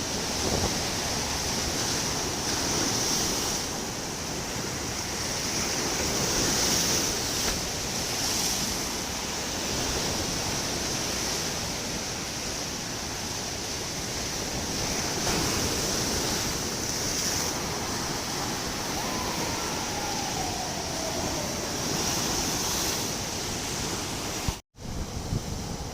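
Sea surf washing steadily onto the shore, with some wind on the microphone. The sound cuts out for a split second near the end.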